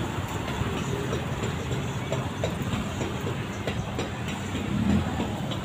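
City street traffic: cars driving past, a steady road rumble with scattered small clicks, swelling briefly near the end.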